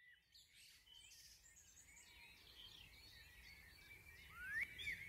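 Faint birdsong from several small birds chirping and warbling over a low background hum. About four and a half seconds in there is a louder call that rises in pitch.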